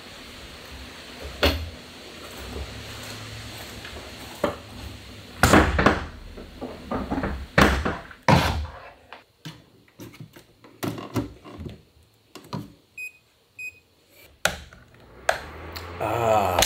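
Knocks and thuds of a small plastic circulating fan being handled and set down on a counter in a small room. About thirteen seconds in come two short beeps, and near the end a steady low hum sets in as the fan starts running.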